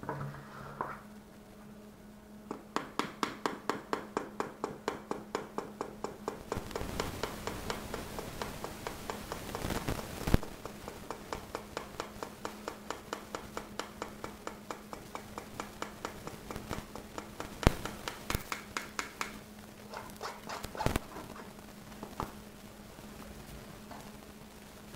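Dry flour mixture being sifted through a sieve, the sieve tapping and rattling in a quick, even rhythm of about five taps a second, with a few louder knocks.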